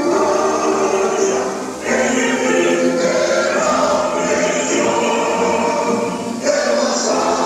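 A choir of voices singing with music, in long held phrases that break off briefly about two seconds in and again past six seconds.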